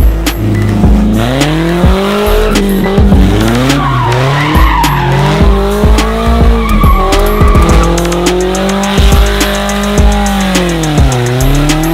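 Polaris Slingshot's four-cylinder engine revving up and down again and again, with tyres squealing as it does burnouts and donuts, over background music.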